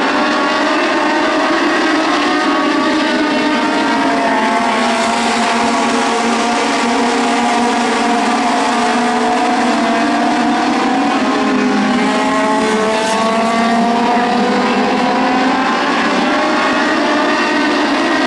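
Several Legend race cars' Yamaha motorcycle engines running hard, overlapping engine notes rising and falling in pitch as the cars accelerate out of the turns and lift going in.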